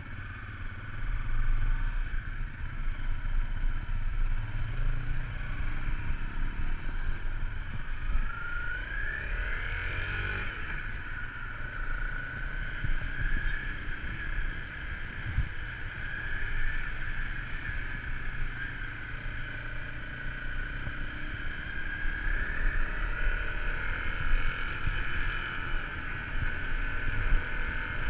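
Off-road vehicle engine running under way with a steady whine, its pitch rising about eight seconds in and then holding, over a continuous low rumble.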